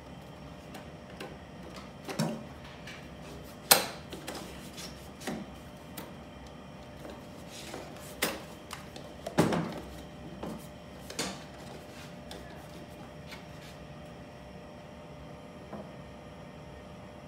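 Clicks and clunks of hands handling an anaesthetic machine, with the Tec 7 vaporizer gripped and checked on its mount. There are about eight sharp knocks, the loudest about four and nine and a half seconds in. After them only a faint steady hum remains.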